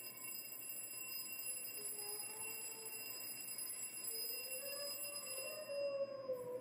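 Alarm clock ringing with a steady, high, bell-like tone that dies away about six seconds in. It is the cue for a hearing dog to wake its deaf user. Underneath, a softer, lower tone slowly rises and falls.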